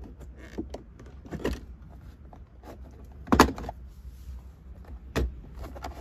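Plastic console trim panel around the handbrake of a 1996 Toyota 4Runner being pulled free and lifted off: several sharp plastic clicks and knocks as its retaining tabs let go and the panel is handled, the loudest about three and a half seconds in.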